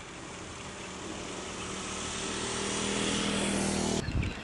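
Motor scooter passing on the road, its engine and tyres growing steadily louder, cut off abruptly about four seconds in.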